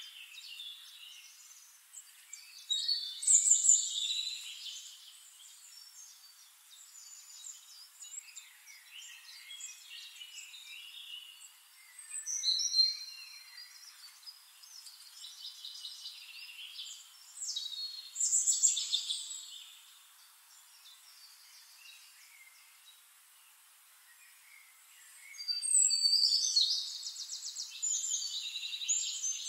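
Birds chirping and trilling in several short bursts, with a longer, rapid trill near the end and a faint hiss between calls.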